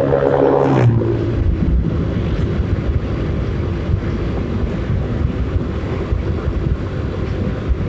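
Motorcycle riding at road speed: the engine runs under a dense, steady rumble of wind buffeting the microphone. In the first second a pitched engine note is heard, which drops slightly about a second in.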